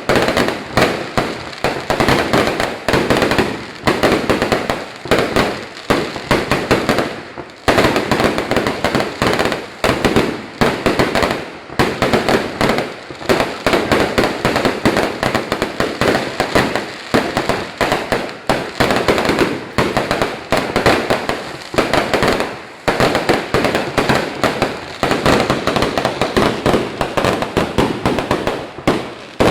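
Fireworks going off in a dense, continuous rapid string of loud bangs and crackles, many per second, with brief lulls about 7, 11 and 22 seconds in.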